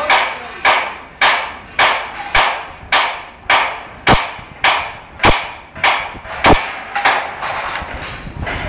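Hand hammer striking formwork in a steady rhythm, a little under two blows a second, each blow ringing briefly; the blows stop about seven and a half seconds in.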